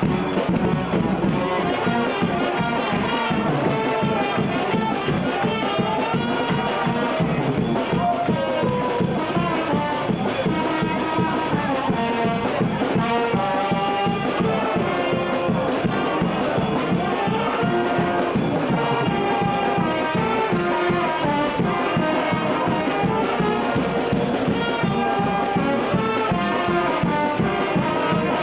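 A banda, a festive French brass band, playing a tune: saxophones and trumpets carry the melody over a steady drum beat.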